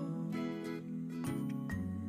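Instrumental background music: short bright notes over held bass notes that change every second or so.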